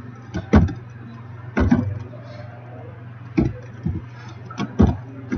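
Computer keyboard keys being struck while typing: about seven sharp, separate clicks at irregular spacing, over a steady low hum.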